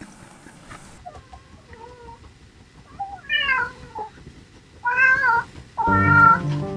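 A domestic cat meowing twice, each meow short with a bending pitch, then piano music starting near the end.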